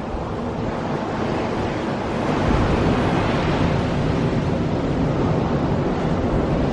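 Ocean surf rushing on a beach, swelling a little louder a couple of seconds in, with wind buffeting the microphone.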